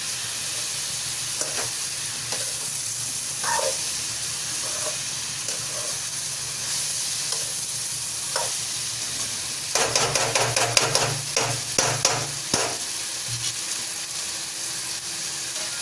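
Ridge gourd pieces and masala sizzling in oil in a steel kadhai while a ladle stirs and scrapes against the pan. About ten seconds in comes a louder spell of rapid scraping that lasts two to three seconds.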